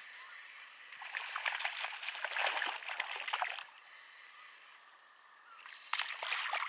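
A hooked walleye splashing and thrashing at the water's surface as it is reeled in close. It comes in two bursts: a longer one starting about a second in and lasting a few seconds, and a shorter one near the end.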